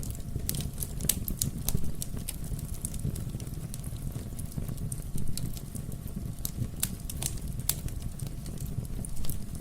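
Wood fire in a fireplace burning steadily with a low rumble of flames and irregular sharp crackles and pops from the burning logs.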